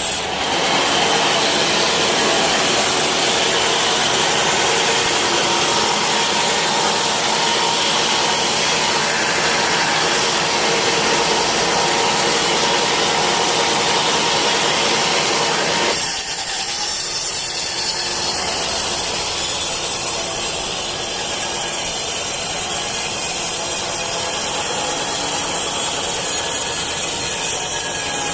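Sawmill saw cutting through teak, a continuous loud rasping cut. About halfway through the sound changes and becomes thinner.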